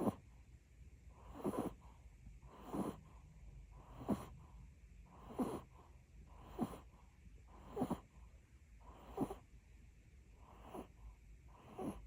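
A Pomeranian spitz snoring: short, evenly spaced snores, about one every 1.3 seconds, around nine or ten in all.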